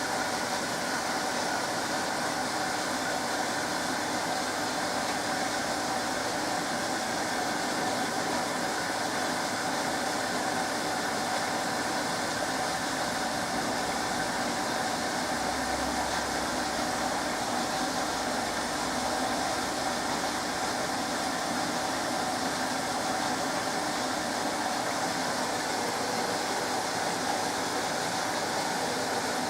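SMEG 11 kg front-loading washing machine running steadily: an even mechanical whir from the drum and motor with a faint steady whine, holding one pitch without speeding up or slowing down.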